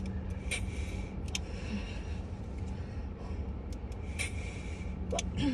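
A person breathing hard after a run, a few sharp breaths standing out, over a steady low rumble.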